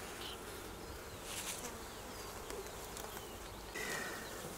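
Steady buzzing of a Buckfast honeybee colony in a hive opened for frame inspection. A brief rustle comes about a second and a half in.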